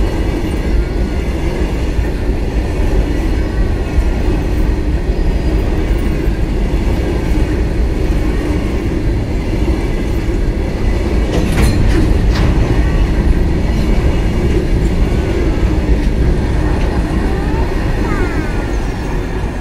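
Indian Railways goods train of covered boxcars rolling past: a steady loud rumble and clatter of wagon wheels on the rails, with two sharp clanks about halfway through. The guard's van at the tail passes near the end.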